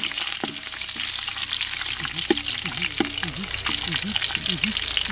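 Fresh curry leaves sizzling in hot oil in a cooking pot: a steady frying hiss with scattered sharp pops.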